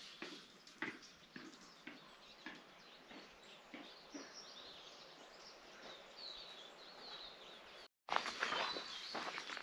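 Songbirds chirping and twittering in scrub woodland, with a few soft knocks in the first half. After a brief break near the end the birdsong is louder.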